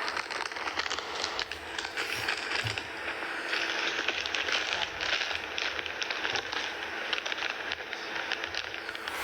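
Plastic packaging crackling and crinkling as it is handled, with many small rapid clicks over a steady hiss.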